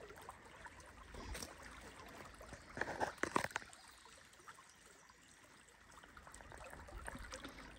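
Small creek trickling faintly over rocks, with a few short knocks and scrapes about three seconds in.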